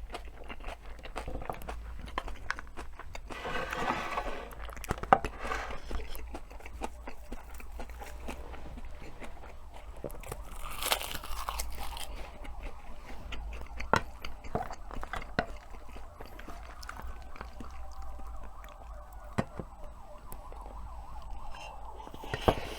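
Chewing and crunching of bibimbap and pork kimchi stew, with many short, irregular clicks of utensils.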